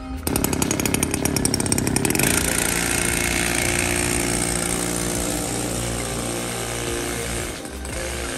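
Small two-stroke mini engine of a children's go-kart, the brush-cutter type, running as the kart drives off. It cuts in sharply just after the start, with fast even firing pulses at first, then settles into a steady rasp.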